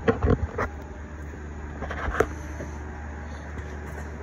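Steady low hum of running CNC machine equipment, with a few short knocks in the first second and a sharper one about two seconds in.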